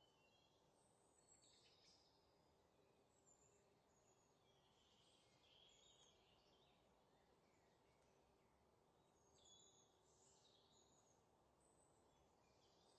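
Near silence: a faint hiss and a low steady hum, with scattered faint high chirps.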